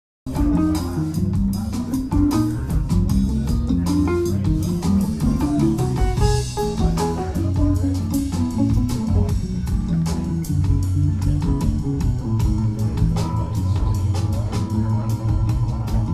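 A vinyl record playing on a VPI Vanquish turntable through Genesis loudspeakers: loud band music with a bass line moving up and down in steps, guitar, and drums with cymbals. The music cuts in abruptly just after the start.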